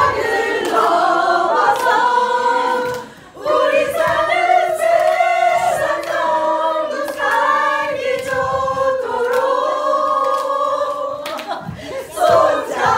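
Women's group singing a cappella in several parts, holding long chords. The voices break off briefly about three seconds in, and the song ends shortly before the end.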